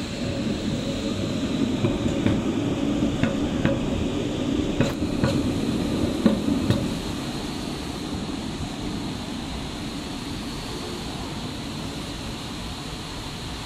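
V3A-93 articulated tram rolling past close by, a steady rumble with a string of sharp clacks from the wheels on the track. The sound drops after about seven seconds as the tram moves away.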